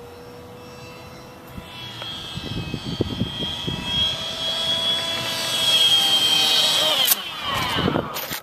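Electric motor and propeller of a small RC flying wing whining overhead, growing louder, then dropping in pitch about seven seconds in, followed by a sharp knock at the very end.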